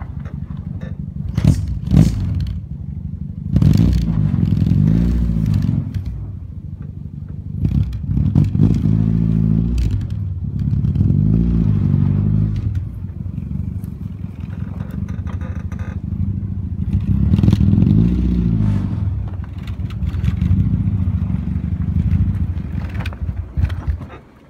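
Nissan 240SX's KA24DE four-cylinder on individual throttle bodies revving up and down again and again as the car drifts on snow, with a few sharp clicks near the start. The engine sound drops away right at the end.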